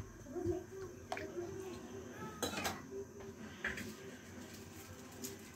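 Steel ladle clinking against a metal wok while stirring a pot of chicken-and-tomato broth: three sharp clinks spread over a few seconds, over a low steady background.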